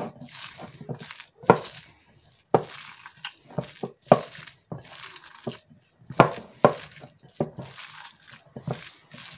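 A hand squeezing and mixing a wet, coarse paste of soaked, ground chana dal in a bowl: squishy strokes with sharp knocks against the bowl, coming unevenly about once a second.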